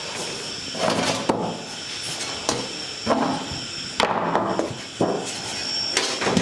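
Screwing a hard drive into the steel drive bay of a desktop PC case: metal clicks and knocks, a few sharp ones, with scraping and rattling in between.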